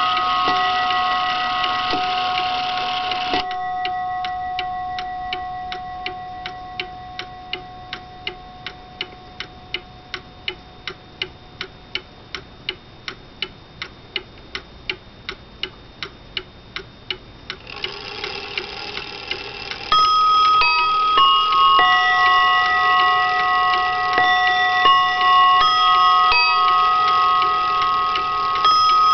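Seth Thomas Sonora-chime mantel clock from around 1900. Its chime notes ring out and die away, leaving the movement's steady ticking; a little over halfway through, the quarter-hour chime starts again as a sequence of slightly out-of-tune notes.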